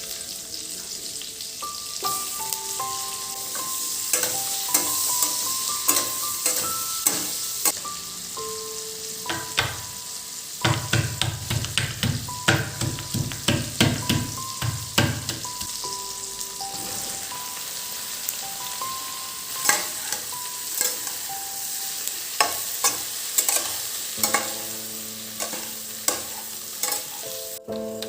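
Food sizzling as it fries in a pan, stirred with a utensil that clicks and scrapes against the pan, the stirring busiest about ten to fifteen seconds in.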